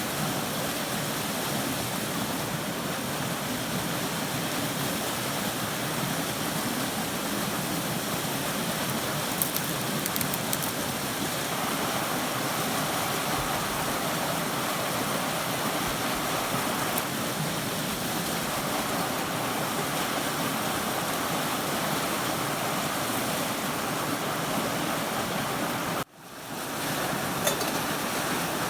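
Steady rush of a moorland river tumbling over rocks into a pool at a small waterfall, with a few faint clicks about ten seconds in. The sound cuts out abruptly for a moment near the end and comes back the same.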